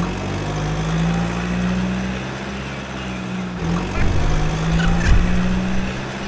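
Tractor engine running steadily at a low, even pitch, with a few knocks about four to five seconds in.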